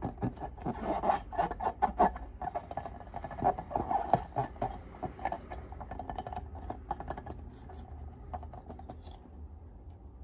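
Slime being worked by hand: a dense run of small sticky clicks and crackles that thins out and fades over the last few seconds.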